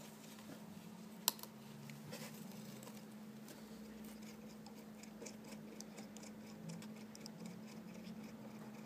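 Faint plastic ticking as the red cap of a tile-leveling clip is twisted down its threaded pin to draw two tiles level, with one sharper click about a second in. A steady low hum runs underneath.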